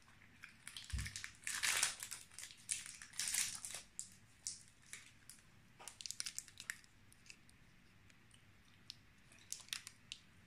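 Foil-lined wrapper of a mini KitKat crinkling and crackling as it is torn open and peeled back, densest in the first few seconds, then a few lighter crinkles. A soft bump about a second in.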